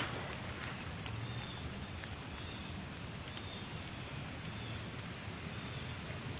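Quiet outdoor ambience: a steady high-pitched insect drone with faint short chirps about once a second, over a low background rumble.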